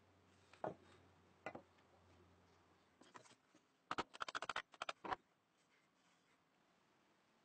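Sharp wooden knocks as a socketed steel tool on its new wooden handle is rapped against a wooden plank surface, seating the handle in the socket. Two single knocks come first, then a quick run of about a dozen taps lasting just over a second.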